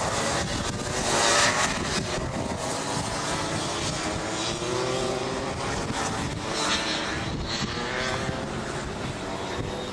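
Several Rotax 125cc two-stroke kart engines racing past, their pitch rising and falling as the karts brake and accelerate through the corners, loudest about a second and a half in.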